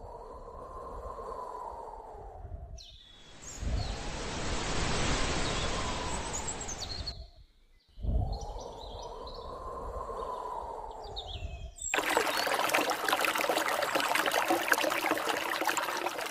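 Outdoor ambient noise in separate edited segments: a rushing sound that swells and fades, heard twice, a steady hiss between them with faint bird chirps, and from about twelve seconds in a crackling wash of rippling water.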